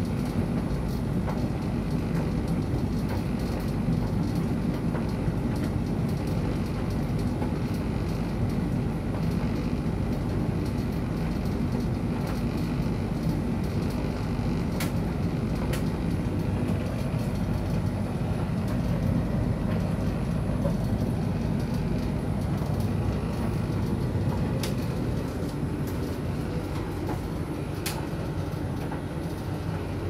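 Electrolux tumble dryer running, its drum turning with a load of clothes: a steady low rumble with a few light sharp clicks.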